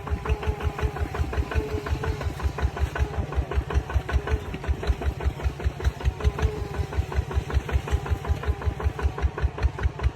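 Kubota ZT140 single-cylinder diesel engine running steadily with an even beat of about five pulses a second.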